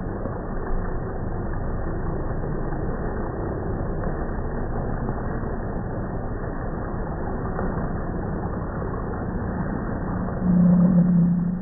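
Polaris Slingshot burnout slowed down to slow motion: the engine and the spinning, smoking rear tyre blur into a steady, muffled low rumble with all the high end gone. A louder low hum swells about ten and a half seconds in and fades just before the end.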